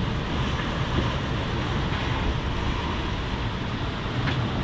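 Steady rush of strong wind, around 27 knots, buffeting the microphone over the wash of waves and water past the hulls of a sailing catamaran running downwind at speed.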